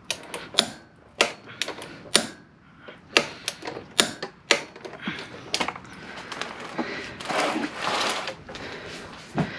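Click-type ratchet torque wrench on a motorcycle front axle, its ratchet and metal parts giving irregular sharp clicks and ticks, with a rasping scrape from about seven to eight and a half seconds in.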